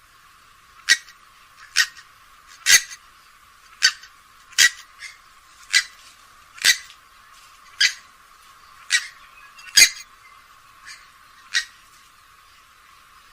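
Grey-headed swamphen giving a run of short, sharp call notes, about one a second, some louder than others. The sound is thin, with no low end.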